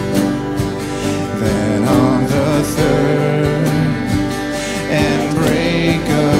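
Live worship band playing a slow hymn: acoustic guitar strumming over electric guitar, bass and keyboard, with voices singing the melody.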